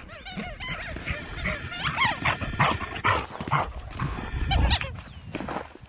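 Dogs yelping and whining in play, many short high-pitched yips one after another.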